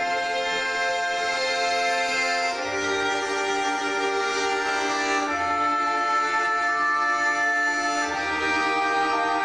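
Live folk-ensemble music with accordion-like reed tones: sustained chords held for about two and a half seconds each, changing three times, with bass notes coming in under the new chords.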